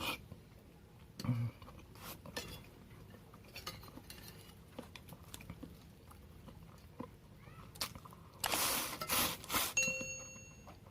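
Eating noodle soup: scattered light clinks of cutlery against the bowl, with a loud breathy burst lasting about a second near the end, followed by a short ringing clink.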